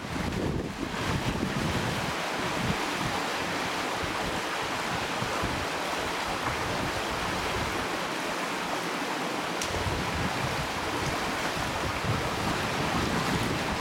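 Steady rush of a fast river flowing around boulders, with wind buffeting the microphone.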